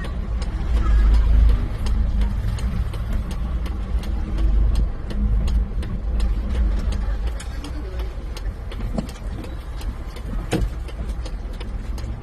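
Isuzu 4JJ1 four-cylinder common-rail diesel engine running in a steady low rumble, with scattered light clicks, after its no-crank, no-start fault was repaired.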